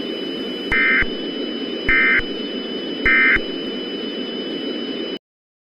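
EAS end-of-message (EOM) signal: three short, identical bursts of SAME digital data tones about a second apart, over a steady static hiss with a thin high whine. Everything cuts off suddenly near the end.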